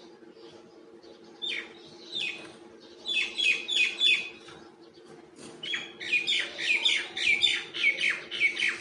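Myna chirping: short calls that slide downward, first one or two, then quick runs of about three a second, loudest in the second half. A steady low hum lies underneath.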